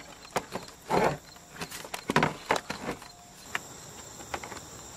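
Plastic door panel of a Suzuki Forenza being pried off the door: a quick run of knocks and clicks as its push-in retainer clips pop loose and the panel rattles, easing off after about three seconds. A steady high insect chirring runs behind it.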